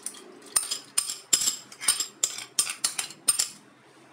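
A steel spoon clinking sharply against the bowl and the rim of a pressure-cooker pot as soaked lentils are scraped in: about ten separate clinks over some three seconds.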